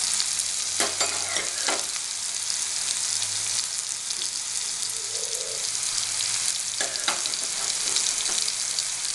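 Boneless chicken tikka pieces sizzling steadily in hot oil in a nonstick pan, with a metal spoon clinking against the pan a few times, around a second in and again near the end, as the pieces are turned.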